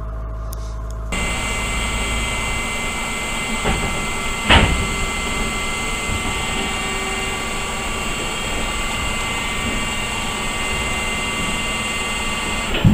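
Diesel engine running steadily with a high whine, stepping up in level about a second in. A sharp knock sounds about four and a half seconds in.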